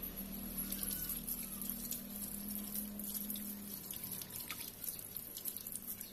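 Water running from a tap and splashing as soapy hands are rinsed under it over a tiled floor drain, starting about a second in and thinning near the end.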